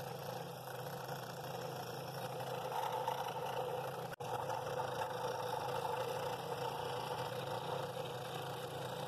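Scroll saw running steadily, its reciprocating blade cutting through cherry wood. The sound drops out for an instant about four seconds in.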